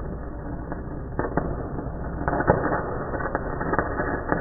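Aluminum stick-welding arc (SMAW with a 4043 aluminum electrode on DCEP) burning with a steady crackle and irregular sharp pops, the loudest about halfway through.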